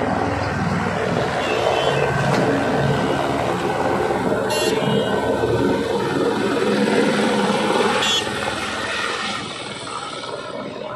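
Helicopter flying overhead: a steady rotor and engine noise that grows somewhat fainter near the end.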